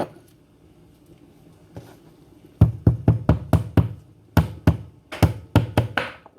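Kitchen knife chopping on a cutting board. It comes as two quick runs of sharp knocks, about four or five a second, starting a little over two and a half seconds in.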